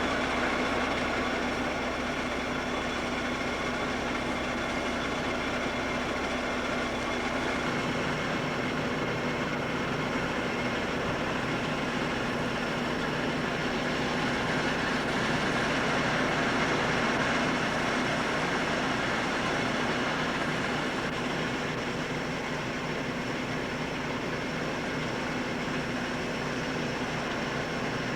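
Heavy engine-driven machinery running steadily: a constant drone with a few steady tones over it, its low end shifting about eight seconds in.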